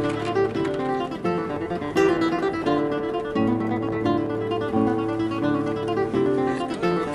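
Background music: an acoustic guitar playing a plucked, rhythmic tune.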